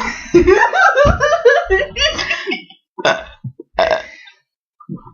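A girl burping loudly: one long drawn-out burp lasting about two and a half seconds, then a few short bursts.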